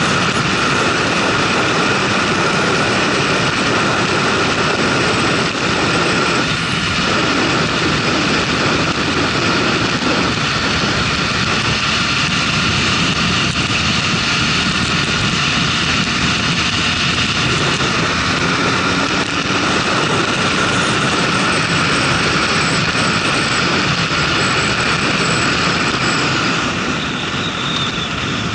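Motorcycle riding at road speed, around 80 to 100 km/h: a steady rush of wind noise over the drone of the bike's engine, easing a little near the end as it slows.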